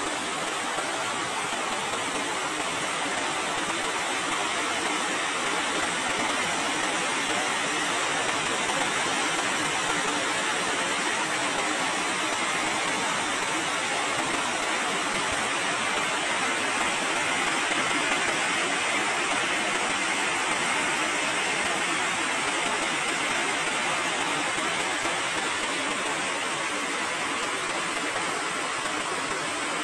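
Steady rain falling on corrugated metal roofs and a garden, an even, unbroken hiss.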